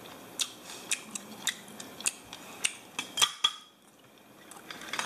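Clicks and clinks of tableware being handled at a meal: cutlery, plates and baked clam shells knocking lightly against each other, a few sharp taps a second with a quick cluster about three seconds in.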